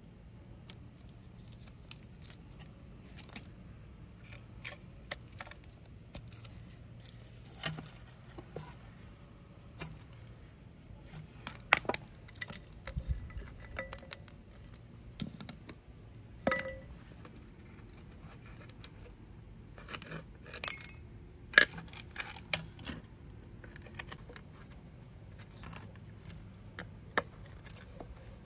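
Scattered small metal clinks and taps of hand tools on rusty parts: pliers gripping and working a bolt, tools and small parts set down on concrete, a screwdriver scraping and prying at a rusted metal plate. A few sharper clinks stand out, the loudest about twenty-two seconds in.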